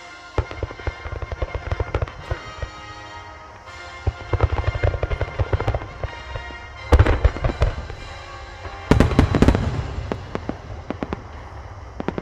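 Star mine fireworks barrage: volleys of rapid launch thumps and shell bursts with crackling, the loudest clusters coming about two-thirds of the way through.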